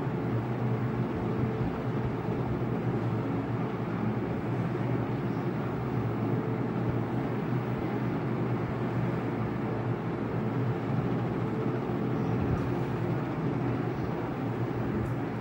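Steady low background rumble with a faint hum, even in level and with no distinct events.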